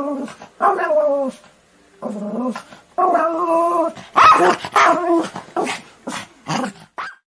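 German Spitz barking: a rapid series of yappy barks, some drawn out and falling in pitch. The barking stops just before the end.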